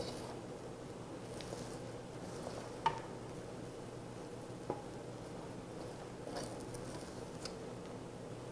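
Wooden spatula stirring and turning over cooked rice and bean sprouts in a stainless steel pot: soft scraping with a few light knocks of the spatula against the pot, over a faint steady hiss.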